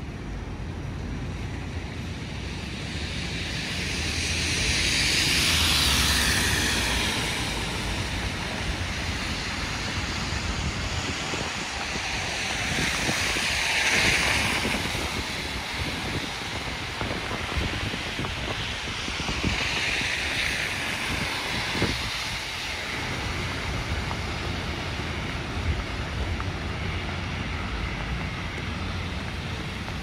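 Street traffic on a snowy city street: a steady background rush, with three vehicles swelling past in turn, about six seconds in, again near fourteen and near twenty, each a rising and fading tyre hiss on the wet, slushy road.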